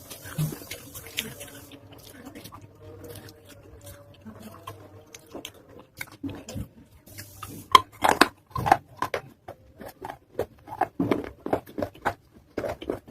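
Close-up chewing of wet baked-clay pot pieces: soft, moist chewing at first, then from a little past halfway a quick irregular run of loud, sharp crunches.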